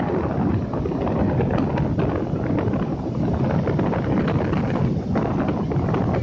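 Rough sea surf breaking and washing up the beach in a continuous rumble, with wind buffeting the microphone.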